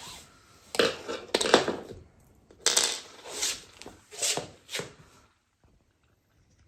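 A suitcase's wheel leg being worked loose from the case by hand, its rivets removed: about six short bursts of scraping and clattering over the first five seconds, then it goes quiet.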